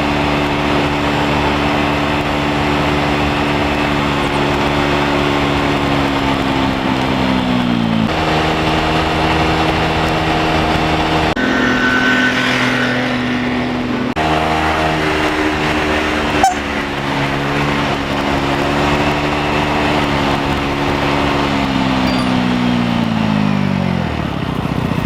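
A car engine running at a steady speed, then slowing with its pitch sinking about eight seconds in; it steps up and down in speed in the middle and slows again near the end, with one sharp click midway.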